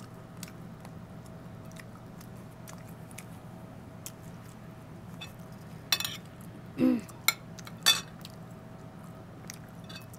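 Spoon clinking and scraping against a plate several times in the second half, with a brief pitched sound about seven seconds in; a faint steady hum underneath.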